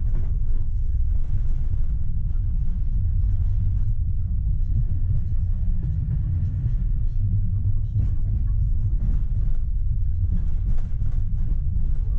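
Tram running along the track, heard from the driver's cab: a steady low rumble of the wheels and running gear.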